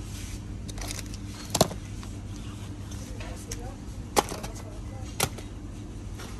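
Cardboard boxes of tea are dropped into a wire shopping cart already holding cans and packets. Three sharp knocks come about a second and a half in, at about four seconds, and a second later, over a steady low hum.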